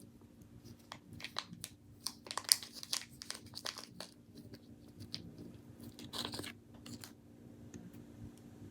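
Faint, irregular clicks and scrapes of a small screw being driven into a metal RC driveshaft on a TRX-4M crawler's drivetrain, with hands handling the plastic chassis; the clicks come thickest a couple of seconds in, with a short denser scrape about six seconds in.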